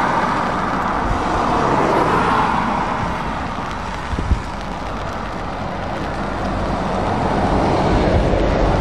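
A convoy of heavy diesel tractor units, MAN and Renault T trucks, driving past with engine hum and tyre noise. The noise grows louder over the last few seconds as the nearest truck comes closer, with a single short knock about four seconds in.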